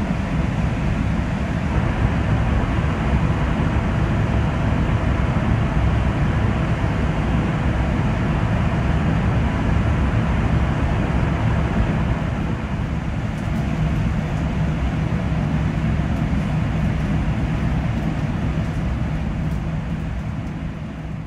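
Steady running noise of a Chinese high-speed train at speed, heard inside the passenger cabin, with a low steady hum under it. It fades down near the end.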